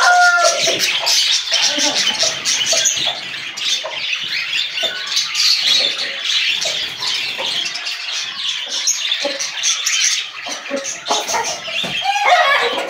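Many small caged birds chirping at once, a dense continuous twittering, with a louder bird call near the end.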